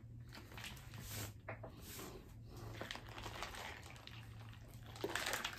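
Faint crinkling and handling noise of a soft plastic squeeze bottle being held and tipped up to drink, with a louder rush of noise about five seconds in.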